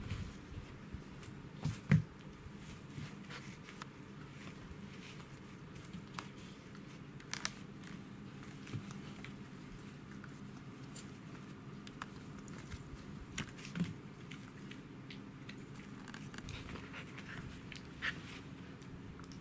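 Pembroke Welsh corgi puppy chewing and gnawing a canvas-and-rope toy: irregular soft clicks, rustles and crinkles of the fabric, with a sharp knock about two seconds in and another near fourteen seconds. A faint steady hum sits underneath.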